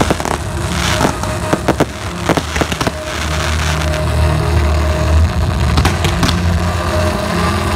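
Fireworks display: a rapid run of sharp bangs and crackles from bursting shells over the first three seconds, then fewer reports over a steady low rumble.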